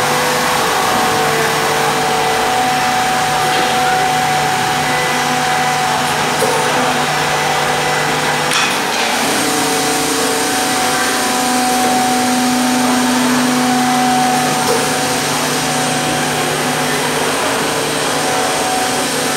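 Multi-spindle CNC mortising machine, a Zhanfei MSK3725X2, running over wood: a steady motor hum and whine at several pitches that shift as its spindles start and stop, with a few light clicks.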